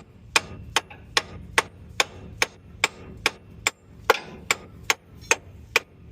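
Hammer blows on steel, about fourteen evenly paced strikes at roughly two and a half a second, each with a short metallic ring. They are knocking the leaf-spring suspension into line so the spring's centre pin seats in its hole.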